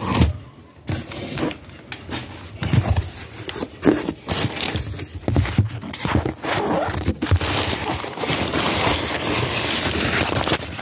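A taped cardboard shipping box being cut and pried open, with scattered scrapes and knocks. From about halfway in, crumpled brown paper packing rustles and crinkles steadily as it is pulled out.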